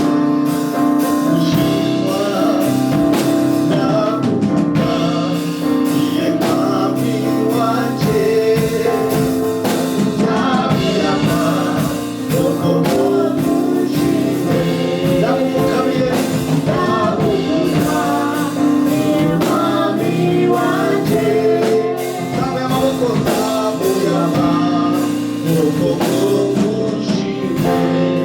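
Gospel worship music: singers over a steady band accompaniment with a regular beat.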